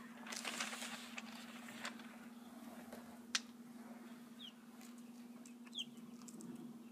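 Small chicken's feet scratching and rustling on sheets of paper, with one sharp tap a little past a third of the way in and two brief high chirps in the second half, over a faint steady low hum.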